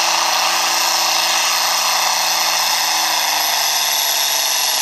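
John Deere farm tractor's diesel engine running flat out under heavy load while pulling a weight-transfer sled, with a thin high whistle over the engine note. The pitch sags a little in the second half as the load builds.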